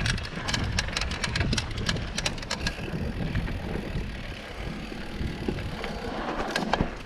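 Mountain bike rolling down a dirt trail: quick irregular clicks and rattles from the bike and tyres over the first couple of seconds, then a steady rush of tyre and wind noise, with one more rattle near the end.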